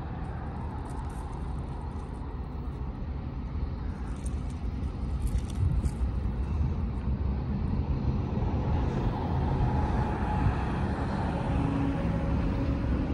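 Steady low rumble of road traffic on the highway overpass above the tracks, growing louder about halfway through.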